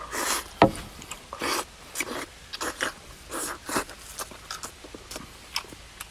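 A person chewing and biting into a large mouthful of meat close to the microphone: irregular short, wet smacks and clicks, a few a second.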